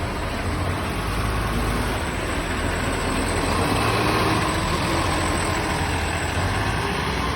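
A city bus's diesel engine running steadily, with a low rumble and a faint whine that rises a little and grows louder about halfway through, over a hiss of rain.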